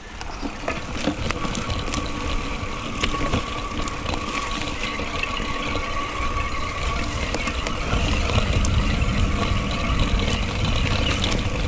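Mountain bike riding over a rough dirt trail: steady tyre and trail noise with scattered clicks and rattles, and a low wind rumble on the microphone that grows stronger about eight seconds in.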